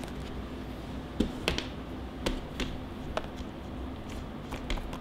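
Handling noise from a rugged plastic power bank held in the hands: about eight short, light clicks and taps, irregularly spaced, over a steady low hum and hiss.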